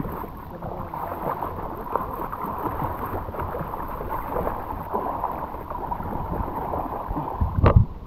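Seawater sloshing and splashing against a floating inner tube while a hooked snapper is hauled up by hand, with one louder slap near the end as the fish comes out onto the tube.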